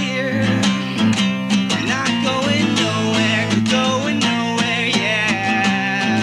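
Music with guitar strumming and a steady beat.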